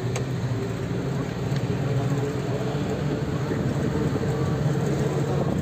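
Engine and road noise of a moving vehicle, heard from inside the cabin as a steady low hum.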